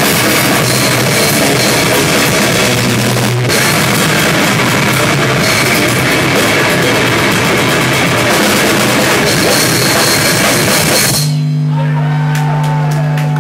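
Heavy rock band playing loud, with a drum kit and electric guitar, cutting off abruptly about eleven seconds in. A steady amplifier hum and a few faint wavering tones are left ringing after the stop.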